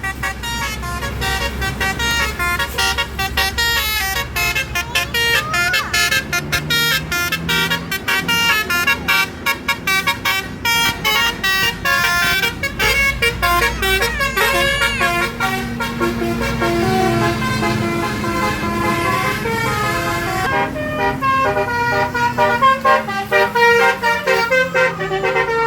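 Indonesian bus 'telolet' horn, a set of several horn trumpets, playing quick, jumpy melodies of stepped notes one after another. A bus engine runs underneath, its note sliding down near the end.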